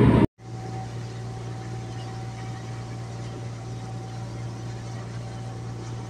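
A loud rushing noise cuts off abruptly a moment in. After a brief silence comes a steady low machinery hum with a faint, even high whine above it, typical of a ship's engines or generators running.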